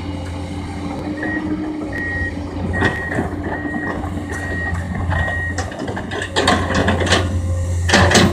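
Komatsu PC200 excavator's diesel engine running steadily while its travel alarm beeps about six times, roughly one beep every 0.7 s, as the machine moves on its tracks. This is followed by a run of sharp knocks and cracks, loudest near the end.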